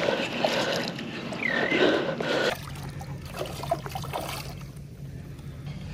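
Water splashing and trickling around a hooked fish that is thrashing at the surface of shallow bay water while it is played on rod and reel.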